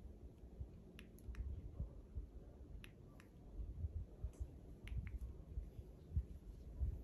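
Handling noise from an iPhone in a snug red case being turned in the hands: low rubbing and bumping, with several short sharp clicks in pairs, about a second, three seconds and five seconds in, as the side buttons are pressed through the case and the screen switches off and on.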